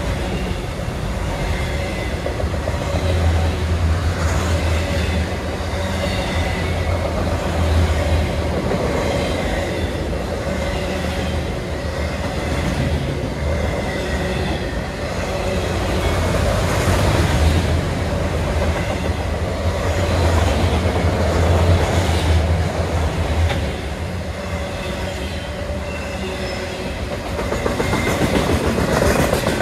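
Enclosed autorack freight cars rolling past at close range: a steady rumble and clatter of steel wheels on the rails.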